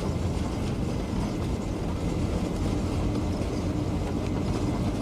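Engine and road noise of a moving vehicle, heard from inside: a steady low rumble with a faint hum setting in about halfway through.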